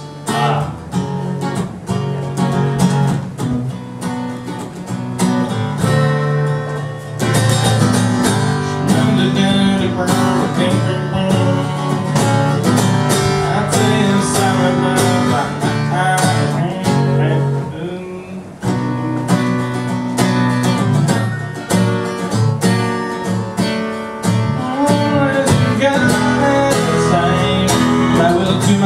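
Music led by acoustic guitar, with many plucked and strummed notes over a steady low line.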